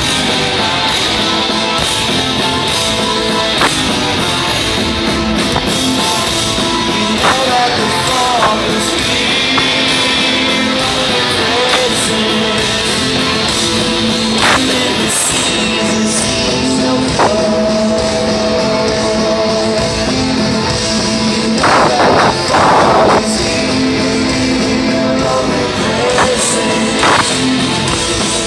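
Rock band playing live with guitars, drums and a singer, heard from within the concert crowd.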